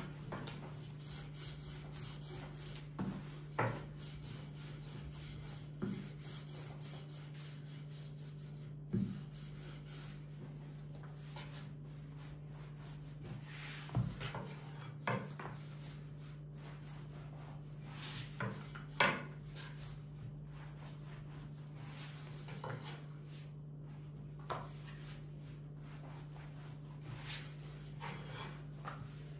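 Long, thin wooden rolling pin (oklava) rolling and rubbing over soft, floured yeast dough on a wooden table, with a dozen or so light knocks scattered through it.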